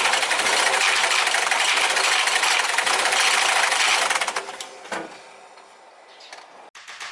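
R56 MINI Cooper S turbocharged four-cylinder engine running with a loud, rapid, dense clatter, the abnormal noise that the owner fears is a blown engine. About four seconds in the clatter fades to a much quieter level.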